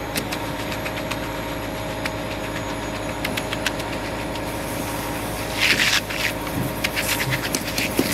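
An engine runs steadily in the background with a constant hum. Scattered sharp clicks and scrapes sound over it, with a louder, brief scraping noise about six seconds in.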